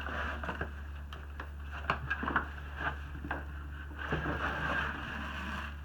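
Unboxing handling noise: packaging and the shipping box rustling and scraping as they are moved, with scattered light knocks and clicks.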